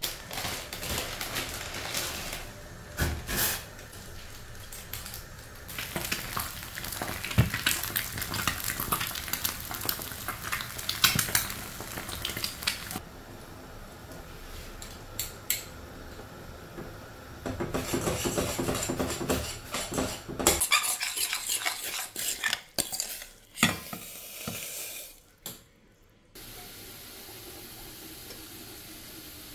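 Cooking sounds: a utensil stirring and clinking against a stainless steel saucepan of instant noodles on a gas hob, with stretches of sizzling. The sound changes abruptly several times, with sharp metal clicks scattered through it.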